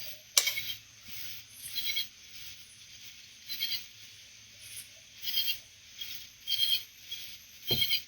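Short high-pitched calls of night creatures, each under half a second, repeating about once a second and sitting around 2 to 4 kHz. There is a sharp click just after the start and a dull knock near the end.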